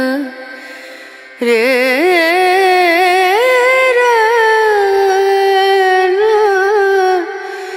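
Background music: a single voice singing long, ornamented notes with a wavering pitch. The phrase fades just after the start and a new one comes in about a second and a half later.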